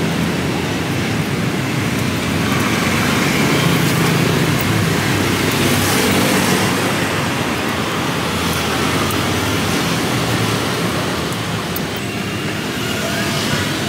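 Steady street traffic noise, a constant hum of passing road vehicles.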